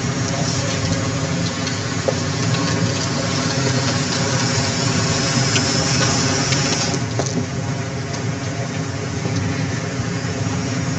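A vehicle engine running steadily, with a loud hissing rush over it that cuts off about seven seconds in.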